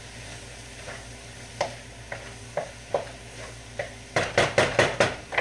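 Broccoli and onions sizzling in oil in a wok, with scattered knocks of a utensil against the pan, then a quick run of clattering knocks near the end.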